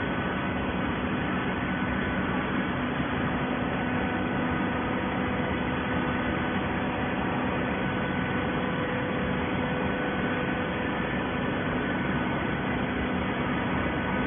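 Cardboard baling machine running steadily: an even mechanical noise with a constant hum and no separate strokes or changes.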